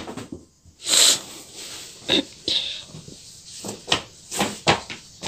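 A floor mat being handled and laid down on a hard floor: a rustling swish about a second in, then a string of short, sharp slaps and knocks as it is flapped flat.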